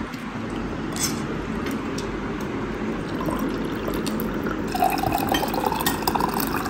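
Drink poured from a glass jug into a glass tumbler, a steady splashing stream whose pitch rises a little as the glass fills in the second half.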